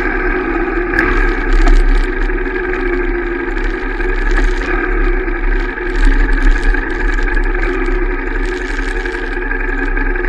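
Royal Enfield Shotgun 650's 648 cc parallel-twin engine running at a steady cruise on the move, its pitch holding even, over a heavy low rumble.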